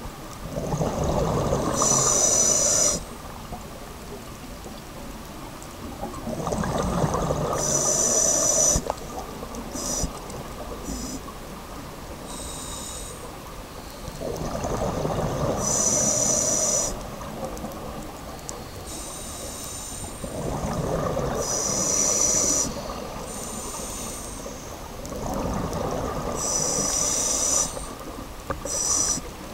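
Scuba diver breathing through a regulator underwater: a rumble of exhaled bubbles alternating with a short, high hiss of inhaling, about five breaths, one every six seconds or so.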